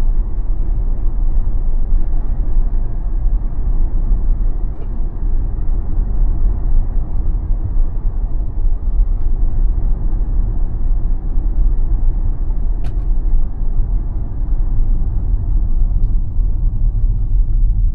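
Steady low rumble of road and tyre noise inside a moving Tesla electric car.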